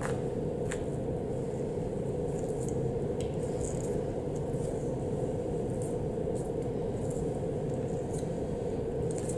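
Steady background room hum, with a few faint soft clicks and scrapes.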